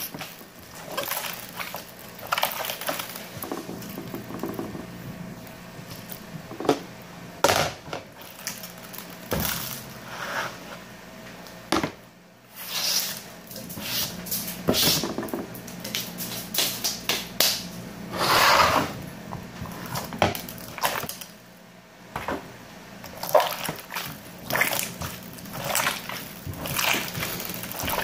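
Slime being squeezed and kneaded by hand: irregular wet squishing sounds, some short and some longer, over a low steady hum.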